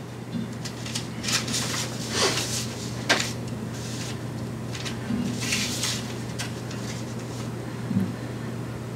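Soft rustling and handling noises, four or five short rustles in the first six seconds and a light thump near the end, over a steady low electrical hum.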